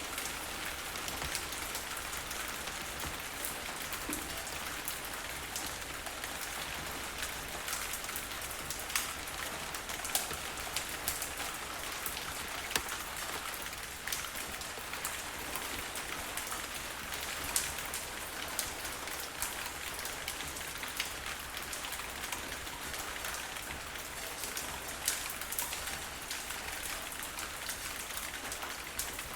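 Steady heavy rain falling on a surface, an even hiss with many distinct drop ticks and splashes scattered through it.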